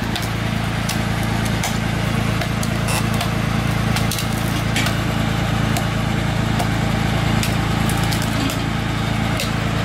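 Tractor engine running steadily to power a tractor-mounted log splitter, with scattered sharp knocks of a hatchet splitting kindling on a chopping post.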